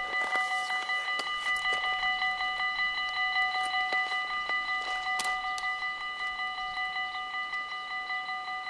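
Level-crossing warning bell ringing in rapid, even pulses as the barrier arms come down, with a few sharp clicks. It stops abruptly near the end, as the barriers reach the down position.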